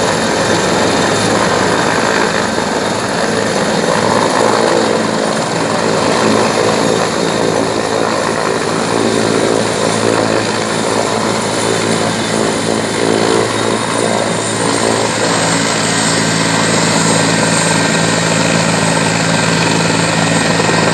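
Helicopter rotor and turbine engine running loud and steady as it descends onto a helipad and sits on its skids with the rotor still turning. The high turbine whine drops slightly in pitch about two-thirds of the way through.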